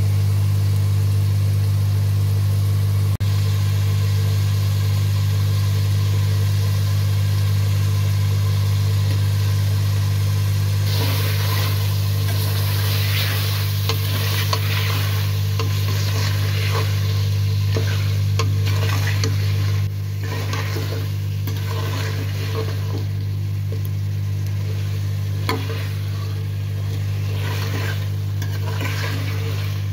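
A steady low hum runs underneath and is the loudest thing. About a third of the way in, a metal spoon starts scraping and stirring potato chunks through sizzling mutton masala in the pan, in many short strokes.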